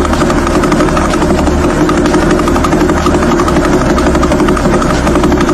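Pulsar radio signal converted to audio: a loud, rapid, even pulsing that runs steadily, with a low hum underneath that shifts about three and a half seconds in.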